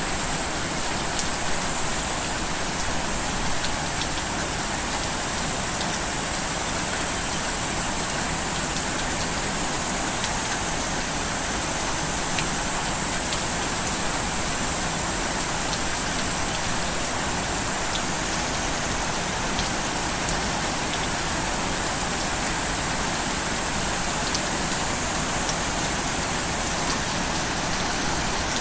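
Steady rain falling and pattering on hard surfaces, an even hiss with scattered individual drop ticks.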